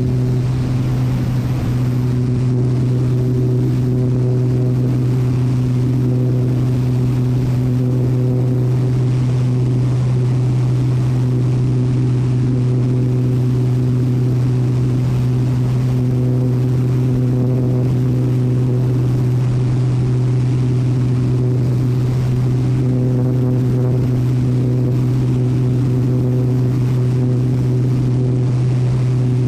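Engine and propeller of a low-flying agricultural crop-spraying airplane holding a steady drone at cruise power, with rushing air, heard from a camera mounted on the aircraft.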